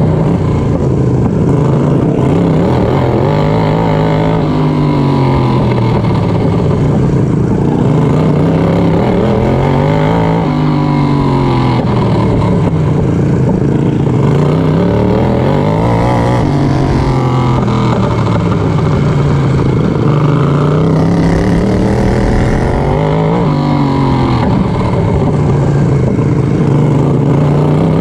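Racing lawn mower engine at full race pace, heard onboard, dropping in pitch and climbing back up every few seconds as the mower lifts off for the turns of a dirt oval and accelerates out again.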